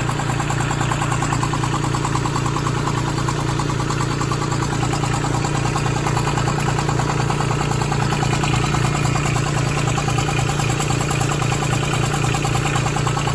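Branson 2500h compact tractor's A1100 diesel engine running steadily, with a fast regular knock over the engine note. This is the strange noise that appeared at 38 engine hours on a new tractor; the owner doubts it comes from the rocker arms.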